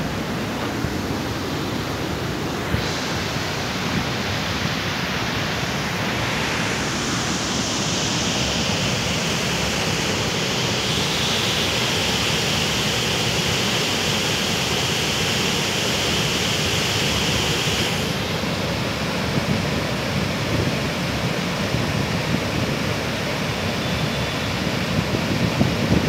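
Water pouring through open canal sluice gates into a churning pool of white water: a steady loud rush that turns brighter and hissier for about ten seconds in the middle.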